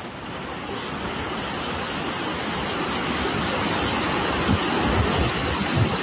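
Steady rushing of muddy floodwater where the swollen river pours into the sea, mixed with surf, growing gradually louder, with wind buffeting the microphone.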